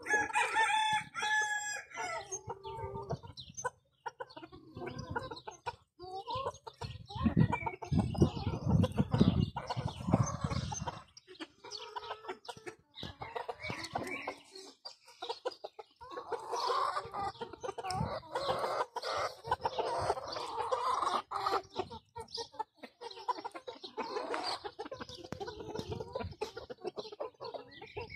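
A small flock of Silkie chickens clucking and calling, with one long pitched call at the very start. About a third of the way in there is a stretch of loud low rumbling.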